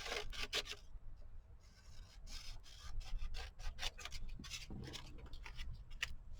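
Short, irregular scratching strokes of a drawing tool on paper, drawing a flower stem.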